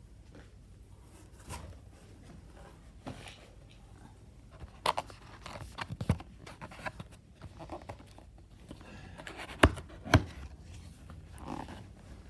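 Unboxing handling sounds: packaging rustling and being torn, with scattered light clicks and knocks, and two sharp knocks about half a second apart a little after nine seconds in.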